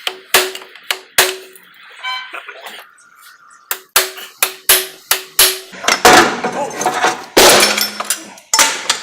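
Steel-on-steel hammer blows, each a sharp ringing knock, knocking the old driveshaft yoke loose from its splines. First a few separate blows, then a faster run of about six strikes; about six seconds in comes a louder stretch of clanking and scraping as the yoke works free.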